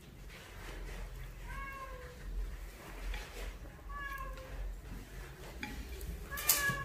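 A cat meowing three times, each meow short and a couple of seconds apart, with a sharp clack at the same moment as the last one near the end.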